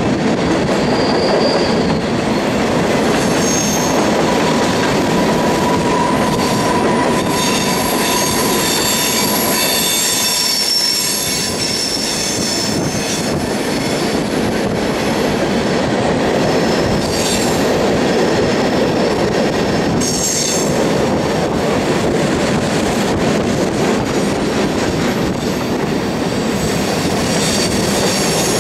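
Covered hopper cars of a grain train rolling past on a curve: a continuous rumble of steel wheels on rail, with high-pitched wheel flange squeal that comes and goes, loudest in the first third.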